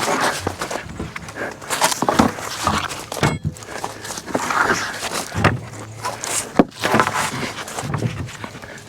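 Footsteps, with irregular knocks and scrapes from sawn oak boards being handled.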